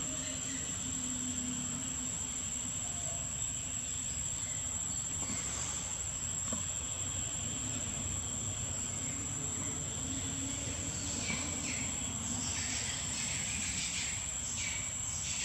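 Steady, high-pitched insect drone that holds one pitch throughout, over a low, even rumble.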